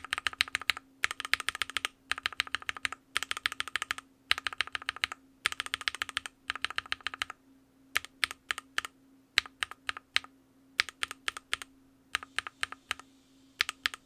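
Mechanical keyboard fitted with Everglide Aqua King linear switches being typed on. The keystrokes have a clacky polycarbonate bottom-out, coming in fast bursts about a second long for the first half, then slower and more spread out.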